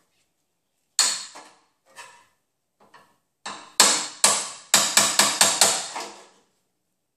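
Hammer blows driving a steel seam buster chisel through the spot-welded sheet-metal seam of a car's radiator support, to break it free of the fender apron. One hard blow about a second in, two light taps, then a quicker run of about nine blows.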